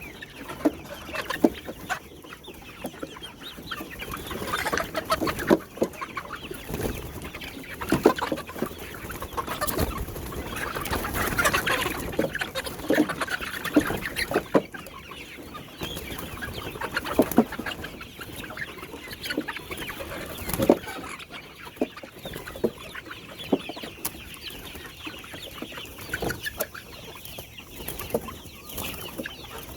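A flock of chickens clucking, with scattered sharp knocks throughout.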